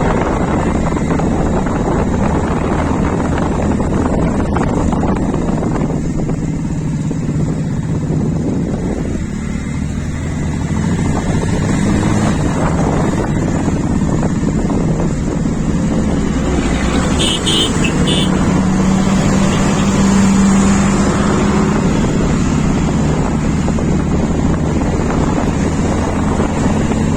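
Wind buffeting the microphone over a steady low hum like a running vehicle engine, with a few short high ticks about two-thirds of the way through.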